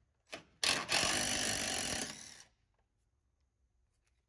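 DeWalt cordless impact running in one burst of about two seconds, with a short blip just before, spinning off a 13 mm nut that holds the factory frame-mounted fuel lift pump.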